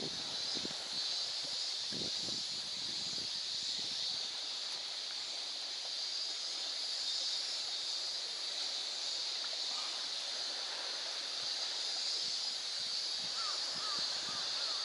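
Small waves lapping against the tube of an inflatable packraft, with a few soft knocks in the first few seconds, under a steady high-pitched hiss. Near the end a bird calls in a quick run of short notes.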